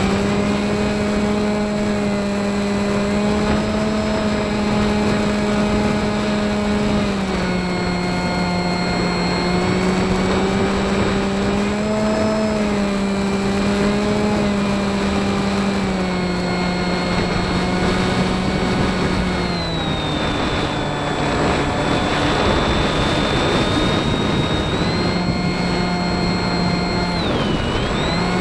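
Model plane's motor and propeller heard from the onboard camera: a steady buzzing hum that shifts down and up in pitch several times as the throttle changes, over a hiss of wind.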